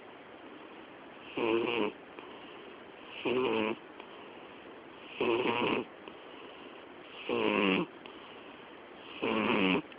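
A sleeping domestic cat snoring loudly: five snores about two seconds apart, each lasting about half a second.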